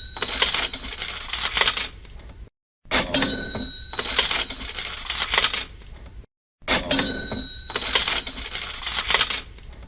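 Cash register sound effect played on a loop: a bell-like ring followed by a clatter of coins, repeating about every three and a half seconds with a short silent gap between repeats.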